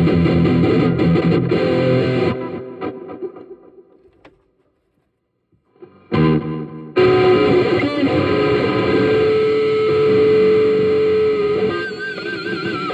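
Distorted electric guitar played through a Marshall CODE 50 modelling amp: a riff rings out and fades to silence a few seconds in, then chords come back in and a long note is held, with a wavering, warbling effect on the notes near the end.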